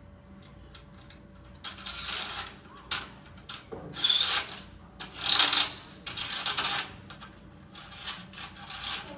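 Curtain runners sliding and rattling along a curtain track in a series of short pulls, each a rasp of about half a second to a second.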